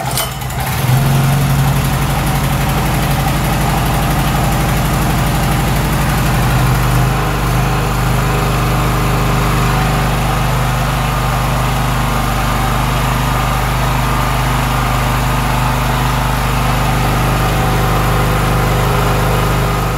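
Tekiro Ryu 2000-watt portable petrol generator, its single-cylinder four-stroke engine (a Honda GX160 clone), catching on a pull of the recoil starter and running loudly and steadily. The running note changes and settles about seven seconds in.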